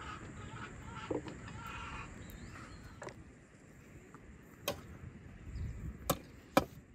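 Chickens clucking faintly, then a shovel digging into stony ground with three sharp strikes in the second half, the last the loudest.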